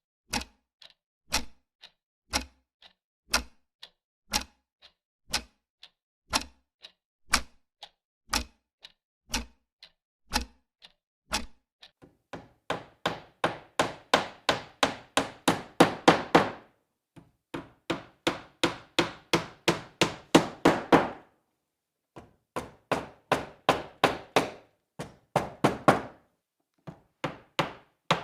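Hammer driving a nail into wood: single blows about once a second, then, a little before halfway, fast runs of blows about three or four a second, broken by two short pauses.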